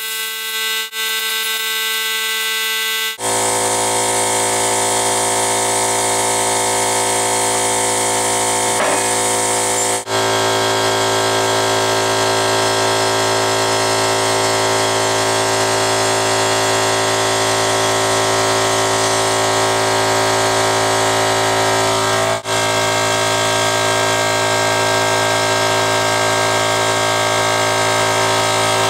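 Electric metalworking equipment running with a steady hum and hiss, in a few segments that change abruptly about 3, 10 and 22 seconds in.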